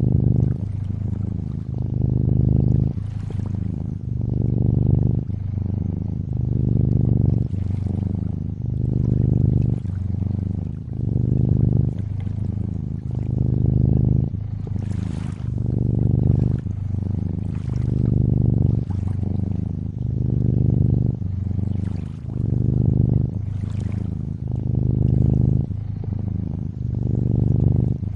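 A cat purring, the low purr swelling and easing with each breath about every second and a half, over faint lapping water.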